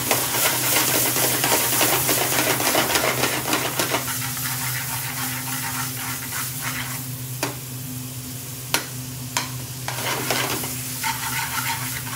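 Garlic paste, sliced peppers and bay leaves sizzling in oil in an aluminium frying pan while a metal spoon stirs and scrapes through them. The sizzle is loudest for the first few seconds, then settles. A few sharp knocks of the spoon on the pan come around the middle, over a steady low hum.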